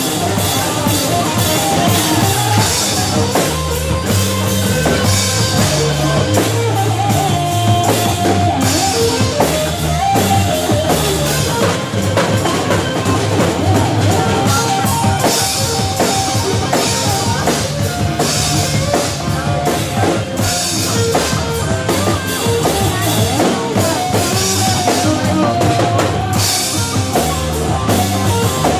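Live rock band playing: electric guitar, bass guitar and drum kit, with a steady drum beat, cymbals and a bass line stepping between notes.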